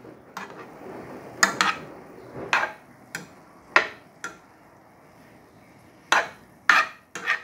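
A spoon clinking and scraping against a frying pan while stir-fried broccoli is stirred. The knocks come irregularly, with a quiet pause of about a second and a half past the middle.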